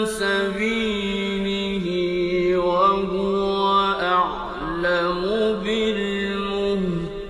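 A male reciter's voice chanting the Quran in the slow melodic style, holding long notes and turning them through slow, ornamented pitch glides, from a 1959 radio recording.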